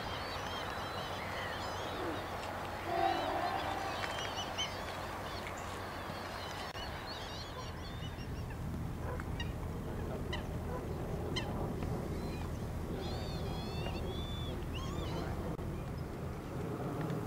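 Flock of northern lapwings calling in flight: many short, wavering, slurred calls overlapping, with one lower, louder call about three seconds in, over a steady low rumble.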